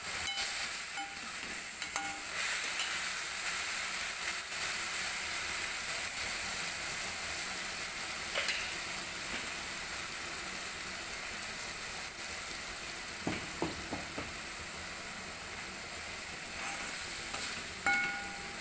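Hadga (agati) flower bhaji sizzling steadily in oil in a steel kadhai, as a perforated metal spatula stirs it. The spatula scrapes and clinks against the pan a few times.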